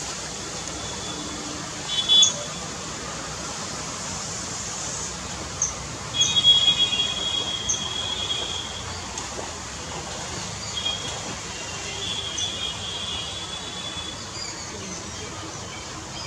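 Small blue kingfisher (common kingfisher) giving short, high, piping calls, one every second or two. Two longer, lower stretches of twittering come about six seconds in and again near twelve seconds.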